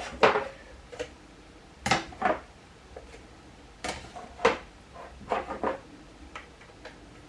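Light, irregular clicks and knocks of a stand-up jigsaw puzzle board's frame pieces being handled and fitted together, about a dozen hard taps with short pauses between them.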